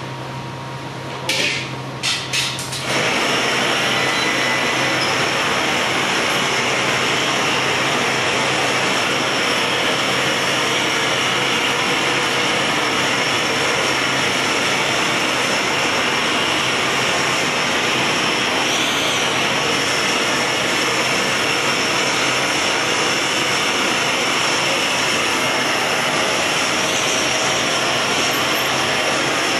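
A few clinks of metal tools, then about three seconds in a large gas hand torch starts and keeps up a loud, steady hiss as it is held on the hot glass.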